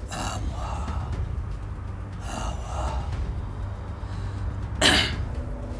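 A man's audible breathing: a few soft breaths, then a sharp, louder intake of breath just before the end, over a steady low hum.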